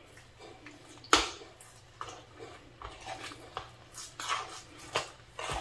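Stirring damp flaked corn couscous in a bowl as hot water is worked in: irregular soft scrapes and squishes, with a sharper knock against the bowl about a second in.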